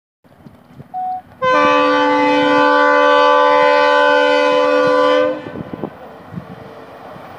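WDP-4D diesel locomotive's horn: a brief toot, then one long, loud blast of several notes sounding together for about four seconds, which cuts off abruptly.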